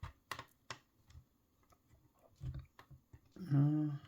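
Small plastic clicks and taps as a plastic connector is worked into the model Stargate's base, with a duller knock about halfway through. Near the end comes a short voiced hum, like a brief 'mm', louder than the clicks.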